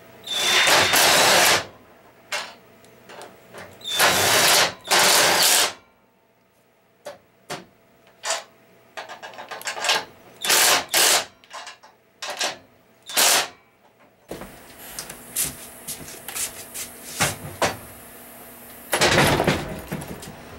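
Cordless 20-volt impact driver running in three bursts of about a second each, followed by scattered clicks and knocks of metal parts on a steel bench, and another loud burst near the end.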